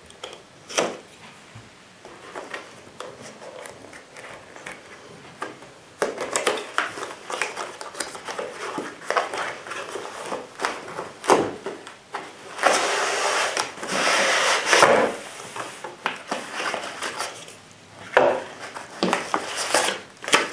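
Cardboard scope box being handled and opened: light taps and scrapes, then a louder stretch of cardboard sliding and rustling about halfway through, and paper rustling near the end as the paperwork is lifted out.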